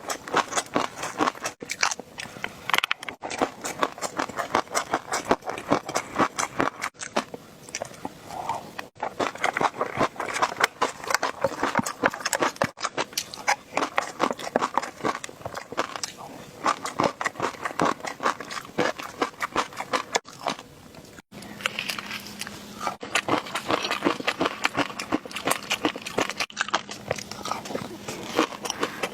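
Close-miked chewing and crunching of food: a dense run of rapid small crunches and clicks, with a brief break about two-thirds of the way through.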